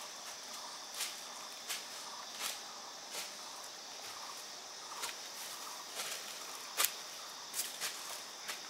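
Footsteps crunching irregularly on dry leaf litter and twigs, with one sharper snap late on, over a steady high insect drone.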